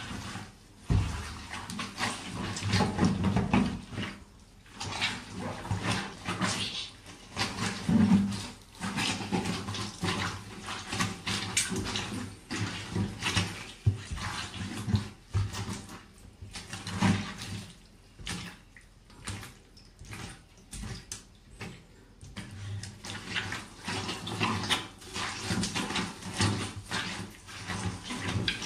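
Rubber boots treading and grinding leafy vegetables in a wet mess: irregular wet squelching and crackling as the food is crushed underfoot.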